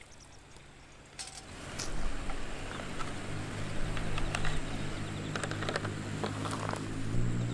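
Crackling and sizzling from cooking over a wood fire, which swells up about a second in, with scattered sharp crackles and a steady low hum underneath.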